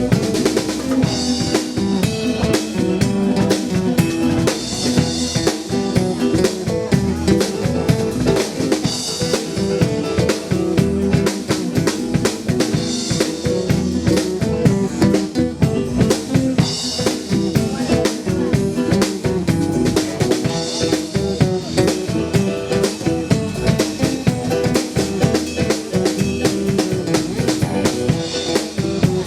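Live band playing an instrumental passage without vocals: a drum kit keeping a steady rock beat on kick and snare over sustained bass and guitar notes, with bright cymbal crashes about every four seconds.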